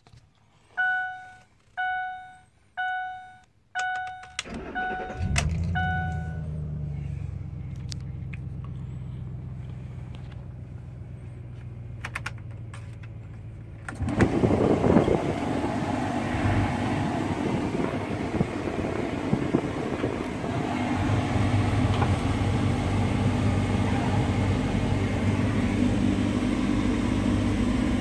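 Ford F-150 pickup's dashboard warning chime dinging about once a second, then the engine cranks and catches about four seconds in and settles to a steady idle. About fourteen seconds in, the climate-control blower comes on, and rushing air from the vents runs over the idle.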